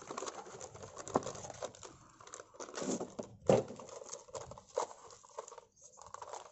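Cardboard box flaps and the paper-wrapped tube of a 12-shot firework cake rustling and crinkling as they are handled and the cake is lifted out. A few sharper knocks from the cardboard come through, the loudest about three and a half seconds in.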